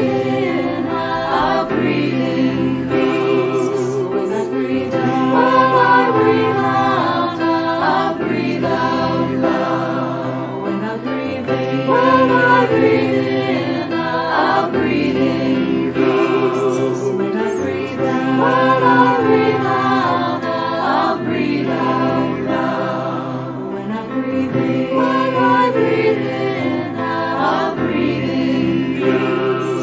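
Virtual choir of men's and women's voices singing a slow, meditative choral piece in harmony, with long held notes.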